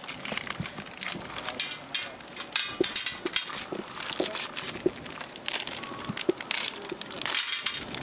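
Plastic candy wrapper crinkling as it is torn open and squeezed, in irregular bursts, with small chocolate buttons dropping onto a steel plate.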